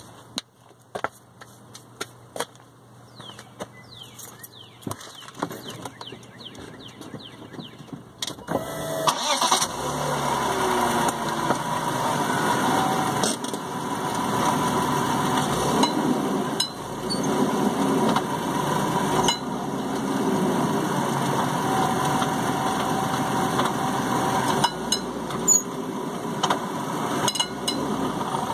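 BMW E39 heard from beneath the car beside the exhaust pipe: a few faint clicks at first, then about eight seconds in the engine starts and runs steadily, with occasional short high ticks over it. The ticks are the driveline tinging/clanging whose origin the owner has not yet found.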